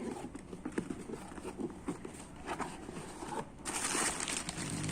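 A cardboard box and its packing being opened and handled by hand: scattered small clicks and scrapes, then from about three and a half seconds in a louder rustling and crinkling of the packing.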